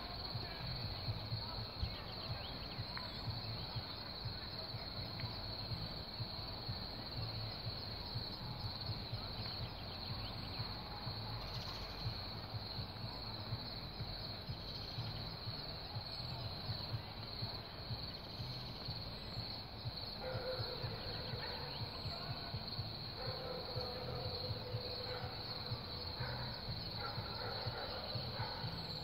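Outdoor background noise: a steady high-pitched hiss over an uneven low rumble, with a faint steady tone coming in about twenty seconds in. No distinct event stands out.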